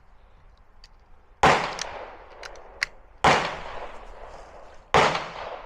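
Three sharp gunshots about 1.7 s apart, each trailing off in a fading echo, with a couple of faint clicks between them.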